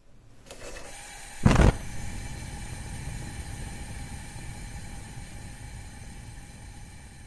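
A short loud thump or burst about a second and a half in, then a steady mechanical-sounding hum with faint steady tones that slowly fades.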